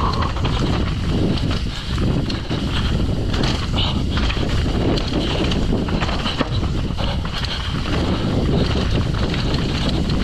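Wind rushing over the microphone as a mountain bike descends at speed, with its tyres running over dirt and rock and the bike rattling and knocking over rough trail.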